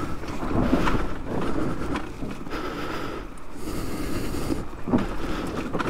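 Trail bike engine running steadily while the bike descends a steep, rough dirt track, with a few sharp knocks.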